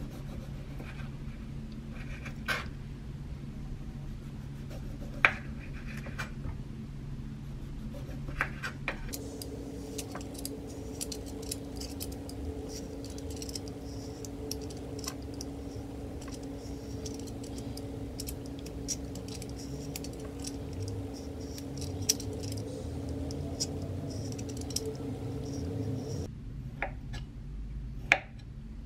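Small knife and vegetable peeler paring a golden kiwi on a wooden cutting board: soft scraping of the skin with scattered clicks and taps of the blades, and sharper knife taps on the board near the end as the fruit is sliced. A steady low hum runs underneath, changing pitch about nine seconds in and stopping near the end.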